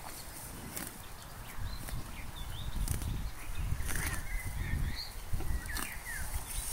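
Scottish Highland cow grazing, tearing grass in a few crisp rips. The loudest rip comes about four seconds in.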